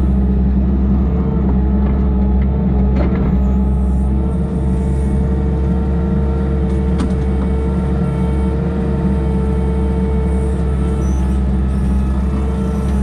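A large vehicle engine running steadily with a low, even drone, with a couple of brief knocks over it.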